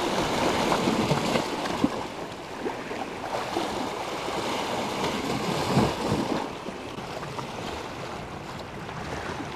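Sea waves washing and splashing against shoreline rocks, a steady surging hiss that drops a little about two-thirds of the way through.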